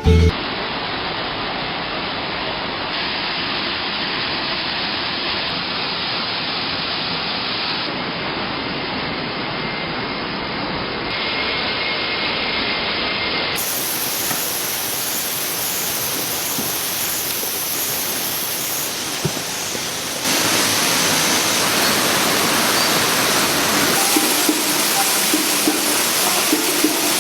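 Steady rushing of water from a waterfall, a dense even hiss whose tone changes abruptly a few times, with a few light ticks near the end.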